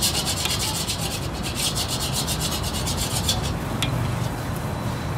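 Metal spatula scraping rapidly and rhythmically against a wok as rice or noodles are stir-fried, several strokes a second; the scraping stops about three seconds in, leaving a steady low rumble and a single click.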